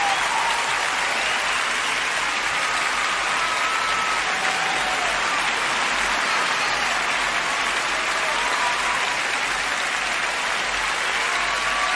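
A large audience giving a standing ovation: steady clapping with scattered cheers.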